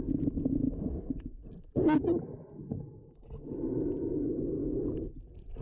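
Snorkeller's breathing through the snorkel, heard muffled underwater through a GoPro housing: long low breaths in and out, with a short sharper sound about two seconds in.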